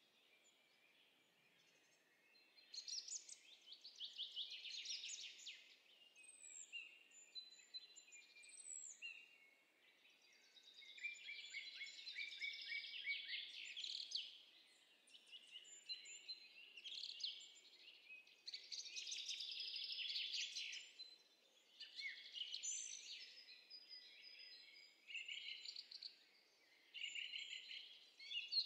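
Songbirds singing, from a nature sound-effects track: quiet bursts of fast high trills and chirps with a few short whistles, starting about three seconds in and returning every few seconds.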